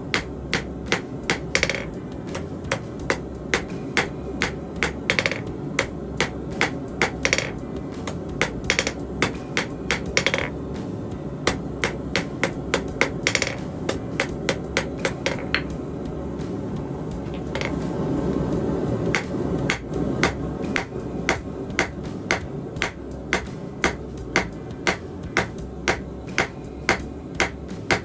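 Blacksmith's hand hammer striking a hot, squared steel bar on an anvil face, drawing it out into a long thin taper. The blows come steadily at about two a second, with a break of a few seconds around the middle, over a steady low background noise.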